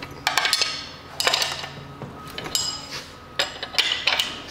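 Metal wrench clicking and clinking in several short bursts as the nuts holding an outboard's lower unit onto its studs are backed off.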